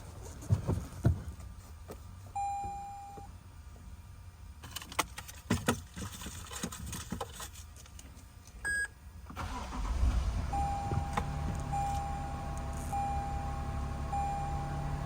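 Toyota Tundra being started: clicks, knocks and a couple of single chime beeps, then the engine catches about nine and a half seconds in and settles into a steady idle while a warning chime beeps about once a second. The owner reports an engine knock in this truck.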